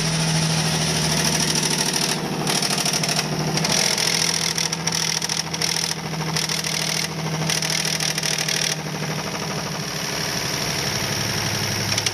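Kia Sedona van's V6 engine idling, a steady hum with fast, light ticking over it. The mechanic puts the noise down to the timing chain slapping a broken plastic chain guide when there is too little oil pressure at the tensioner.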